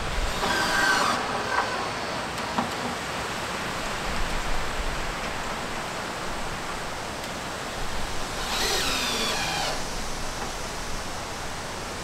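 Cordless drill driving screws into the metal roof, two short whining runs, one near the start and one about eight and a half seconds in, the second dropping slightly in pitch under load, over steady background noise.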